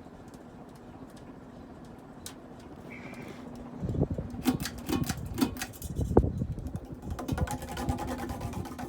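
Harbor Breeze Calera ceiling fan motor running with a steady hum. From about four seconds in, a run of knocks, clicks and rattles comes in over it.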